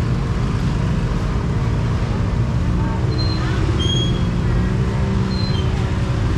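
Steady low rumble of street and market background noise, with a faint murmur of voices and a few short, high chirps.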